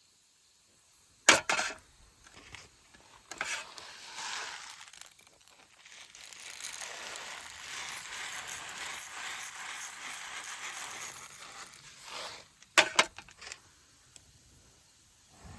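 A few sharp clinks and knocks, the loudest about a second in and near the end, with a stretch of steady hiss in between.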